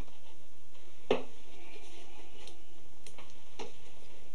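A few light, sharp clicks and knocks of wood as a woven basket with a wooden lid on wooden hinges is handled, over a steady background hiss.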